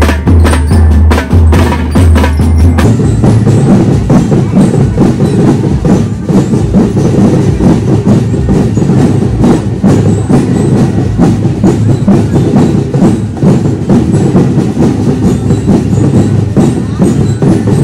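A school drum and lyre marching band playing a fast marching beat: dense drum strokes with bell-lyre tones. A deep low booming drops away about three seconds in.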